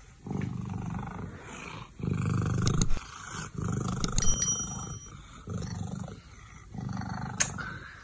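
Domestic cat purring loudly, a deep rumble likened to a refrigerator, coming in about five phrases with short breaks for breath.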